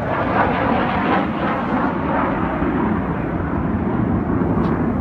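Formation of military jets passing low overhead, a loud steady jet-engine roar that deepens in pitch as they pass.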